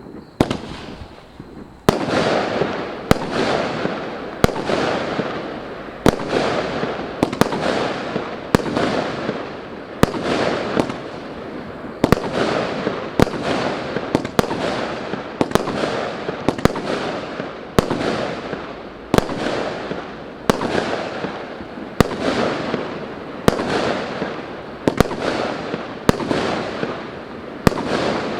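A 20 mm, 49-shot battery of shot-tube fireworks firing. After about two seconds of quieter fizzing, sharp shots come about once a second, each trailed by around a second of hissing, crackling noise.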